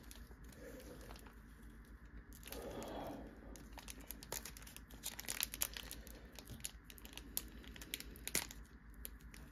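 Handling of a foil Pokémon booster-pack wrapper and trading cards: crinkling and tearing with many small scattered clicks.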